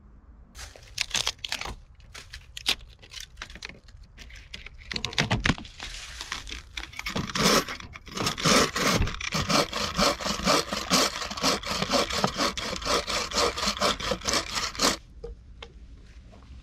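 Wooden-framed bow saw cutting through a log, stroke after stroke. The strokes come unevenly at first, settle into a fast, steady rhythm, and stop suddenly near the end.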